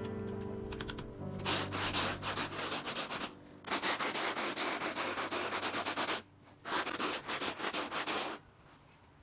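Three bursts of rapid rasping rubbing or scrubbing strokes, each about two seconds long with short pauses between, after background music fades out.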